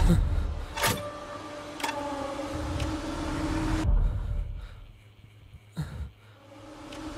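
Horror film sound design: a low rumbling drone with steady held tones and three sharp hits about a second apart. It cuts off abruptly about four seconds in, leaving near quiet broken by a short sweep, and the drone comes back near the end.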